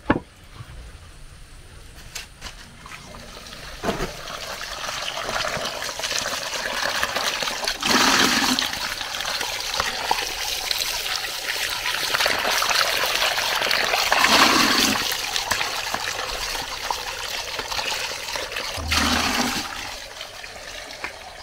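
Tap water gushing from an outdoor standpipe into a plastic bowl while raw meat is rubbed and washed by hand in it, with louder splashes three times.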